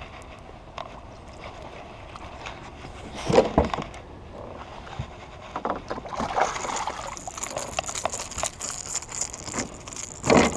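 A hooked largemouth bass being reeled in and landed beside a kayak: two loud splashes, about three seconds in and near the end, with clicking and a steady high whine in between.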